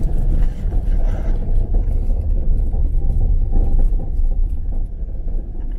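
A car running with a steady low rumble.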